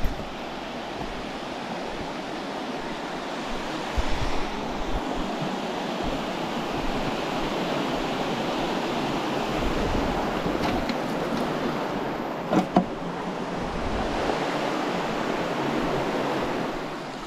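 Creek water running steadily over shale ledges and small cascades, with a few brief thumps, about four seconds in and again as a close pair about two-thirds of the way through.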